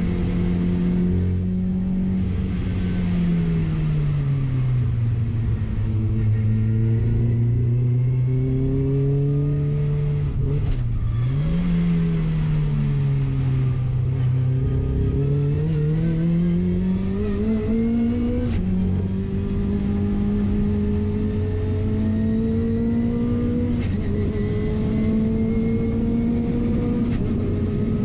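Car engine running under changing load, its pitch falling for several seconds, dipping briefly, then rising again. A short step down in pitch comes about two-thirds of the way through, after which the note climbs slowly and holds steady.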